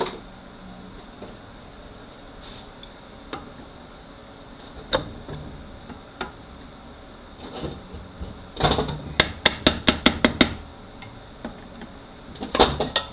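Sharp metal clicks and taps of hand tools on transmission internals as a snap ring and return spring come out of a Toyota U660E transaxle: scattered single clicks, then a quick run of about eight taps some nine seconds in and a short cluster near the end.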